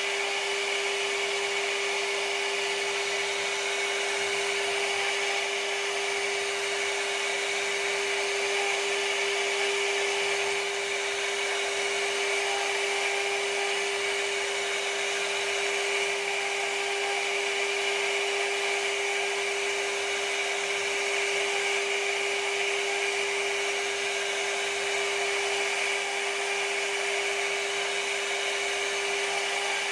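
CNC router spindle running at a steady high-pitched whine as its bit carves a floral relief into a wooden panel, with an even hiss of cutting.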